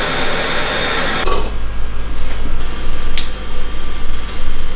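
A steady rushing kitchen fan noise cuts off abruptly about a second in. After it come a few sharp clinks of metal tongs and utensils against plates over a low steady hum.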